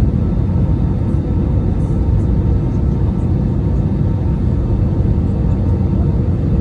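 Steady in-flight cabin noise of an Airbus A319: a constant drone of engines and rushing air, heaviest in the low range, with a few faint steady tones above it.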